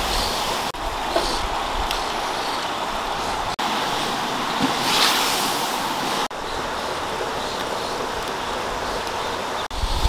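Water at a rolling boil in a large wok, a steady bubbling hiss that breaks off for an instant four times.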